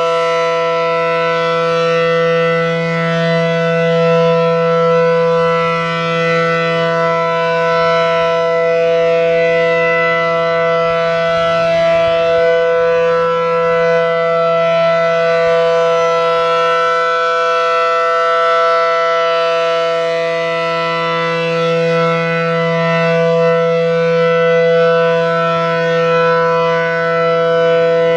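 ACA Allertor 125 outdoor warning siren, reverse-wired, sounding a steady Alert signal. Its chord of several held tones swells and fades slowly as the head rotates.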